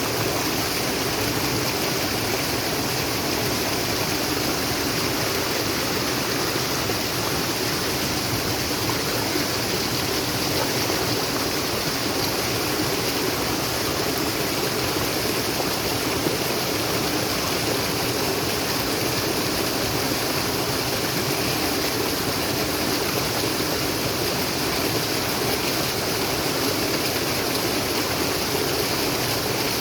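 Naturally flowing water rushing steadily, a continuous even stream sound with no breaks.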